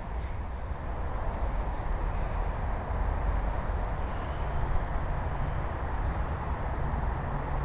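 Steady outdoor background noise: a low, fluctuating rumble with a hiss over it, with no distinct events.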